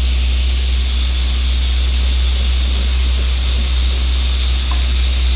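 Table saw running with the workshop's dust extraction, a loud, even hum and hiss that holds steady throughout.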